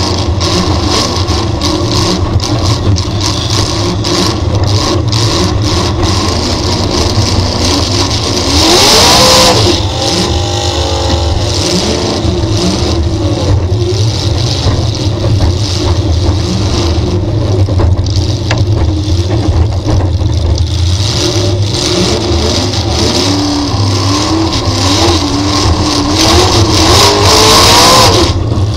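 V8 dirt-track race car engine heard on board, revving up and easing off lap after lap. Its pitch climbs to a loud full-throttle peak twice, about nine seconds in and again near the end.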